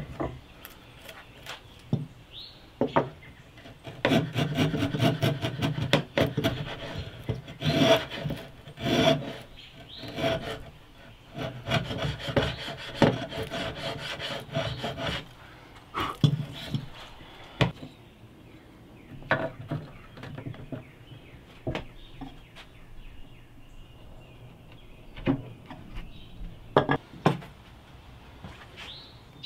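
Lie-Nielsen router plane paring the bottom of a dado in a wooden rail: a dense run of quick, short scraping cuts starting about four seconds in and lasting some ten seconds, then scattered separate knocks and taps.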